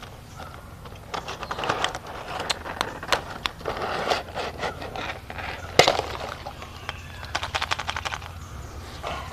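Toy packaging being opened and handled: irregular crackling and clicking, with one sharp snap a little before six seconds in.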